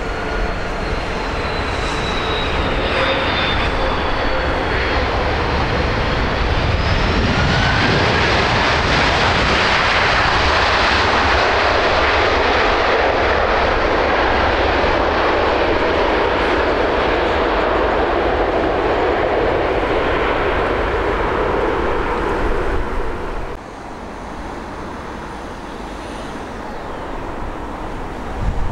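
Airbus A330 airliner touching down with a slightly falling engine whine. About seven seconds in, a loud rushing jet roar builds with a rising pitch, typical of the engines spooling up into reverse thrust on the landing rollout. Near the end the roar drops off suddenly, leaving the quieter hum and faint whine of another jet on approach.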